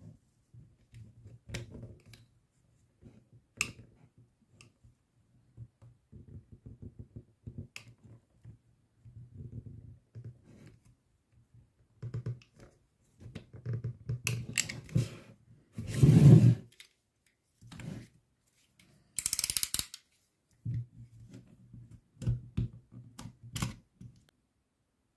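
Drill clamped to a table as a makeshift wood lathe, run in short stop-start spells with a low hum and rapid knocking as a wood drill bit is held against the spinning workpiece. It is loudest about two-thirds of the way through, and a brief hissing scrape follows.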